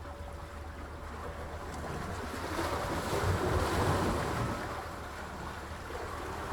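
Sea waves washing in, one surge swelling about two and a half seconds in and easing off after about four seconds.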